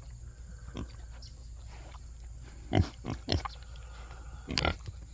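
Pigs grunting in a few short, separate grunts.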